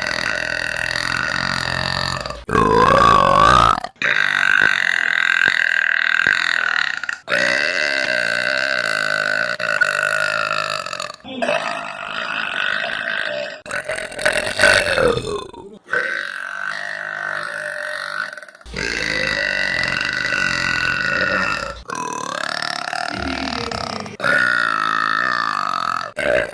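A woman burping long, drawn-out voiced burps, one after another, about ten in all. Each is held on a fairly steady pitch for two to four seconds and is cut off abruptly into the next.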